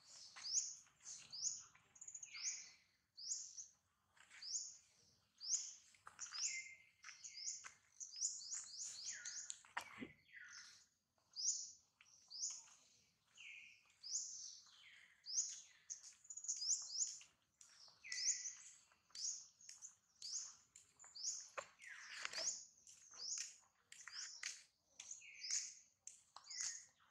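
Birds chirping: a quick, continuous series of short, high notes that slide downward, with a few lower notes mixed in.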